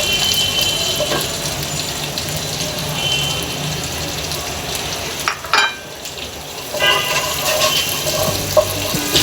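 Chopped garlic frying in hot butter and oil in a pan, with a steady sizzle. Two short knocks come about five and a half seconds in.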